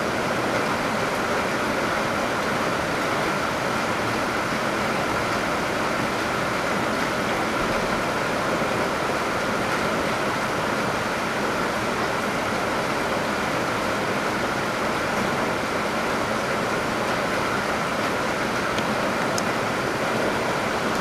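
Heavy rain with rainwater flowing steadily out of a downpipe, a constant loud rush of water.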